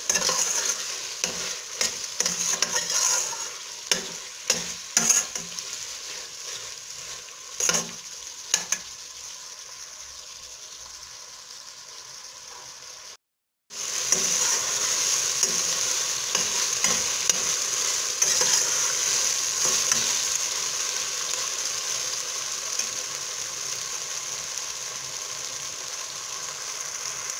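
Chopped tomatoes, peppers and onions sizzling in oil with tomato paste in a stainless steel pot, with a metal spoon clicking and scraping against the pot as they are stirred. The sound cuts out briefly about halfway, then the sizzling goes on steadily with fewer spoon clicks.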